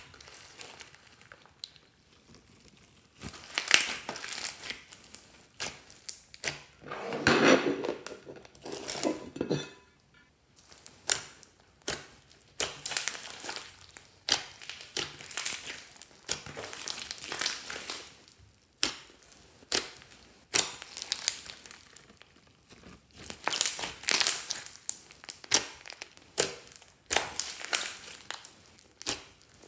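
Hands kneading and squeezing slime loaded with foam beads, glitter and tinsel: irregular bursts of sticky, crackly squishing, with one longer, lower squelch about seven seconds in.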